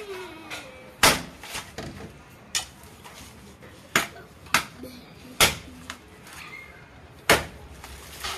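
A machete-type blade chopping into a coconut's fibrous husk on a wooden block as the husk is hacked off: sharp strikes every second or two, a few hard and several lighter.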